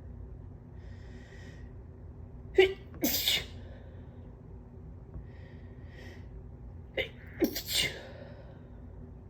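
A person sneezing twice, about four and a half seconds apart. Each sneeze has a faint breath in before it and a sharp burst. They come with morning nasal congestion, which the sneezer hopes means allergy sneezes rather than the start of a cold.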